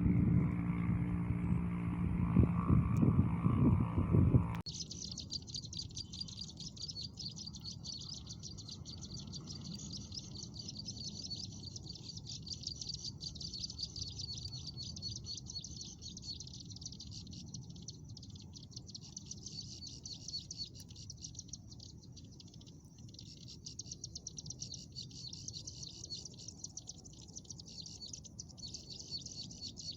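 Short stretch of music that cuts off abruptly about four and a half seconds in. It is followed by a continuous, fast, high-pitched chattering trill of ciblek sawah (prinia) calls, the kind of call used to lure the bird.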